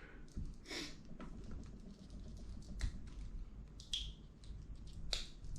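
LEGO Technic plastic parts being pulled apart and refitted by hand: a few scattered light clicks and snaps about a second apart.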